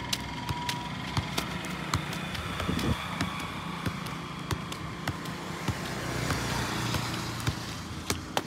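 A football being juggled with the feet: a short knock at each touch of the ball, about two a second, over steady road traffic noise.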